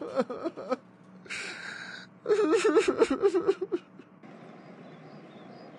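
A cartoon character crying: wavering sobbing wails in two bouts, with a breathy gasp between them, then a steady faint outdoor hum of background ambience.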